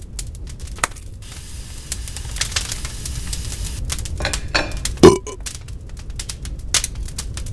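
Fire crackling as a sound effect: irregular snaps and crackles over a steady low rumble, with one loud thump about five seconds in.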